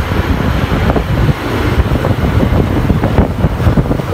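Moving bus heard from inside: a low engine and road rumble, with frequent rattles and knocks from the bodywork.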